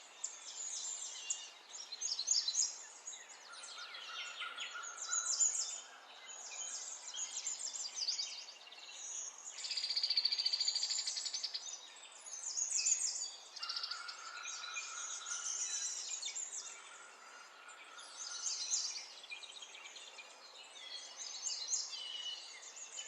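Birdsong: many birds chirping and trilling, with a longer, steadier high trill about ten seconds in.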